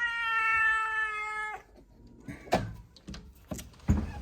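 A cat giving one long, steady meow lasting about a second and a half, followed by a few short knocks.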